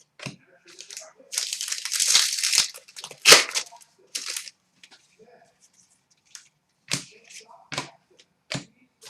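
Foil wrapper of a trading card pack being torn open and crinkled, with a sharp snap about three seconds in, then scattered clicks and rustles as the cards are handled.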